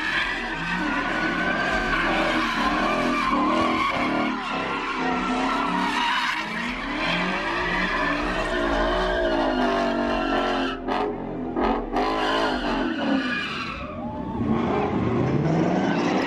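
Cars doing donuts: engines revving up and down over tyres screeching almost without a break.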